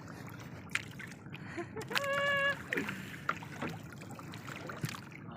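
Water splashing with several sharp knocks against a small fishing boat, as a hooked fish is brought in.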